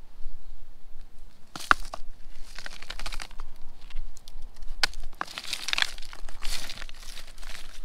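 A leather-gloved hand picking up and turning over a rock over a pile of loose broken rock: several rustling, scraping bursts with a few sharp clicks.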